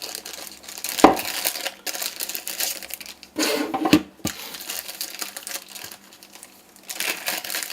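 Handling noise: rustling with sharp clicks and knocks as car key fobs and their packaging are handled, with a loud knock about a second in and another near four seconds.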